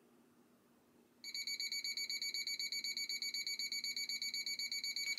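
Piezo buzzer on a ZH-YU ZB206+ battery tester starting about a second in and sounding a continuous, rapidly pulsing high-pitched beep. It signals that the discharge test has finished.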